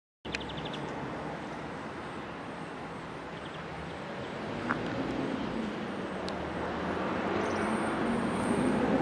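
A train approaching along the line: a steady rumble of wheels on rail that grows gradually louder.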